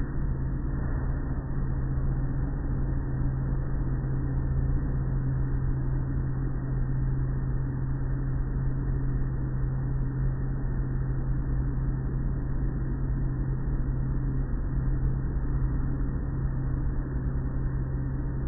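Automatic car wash tunnel running: a steady mechanical drone with a strong low hum, mixed with the rush of water spray and cloth wash curtains working over a car.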